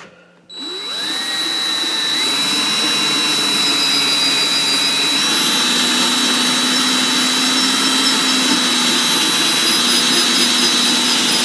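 Cordless drill on low speed turning a reamer in the exhaust valve guide of a Briggs & Stratton 5 hp flathead's aluminum block, reaming the old guide out to take a new bushing. The motor starts about half a second in, winds up over the next second or so, then runs steadily with a high whine.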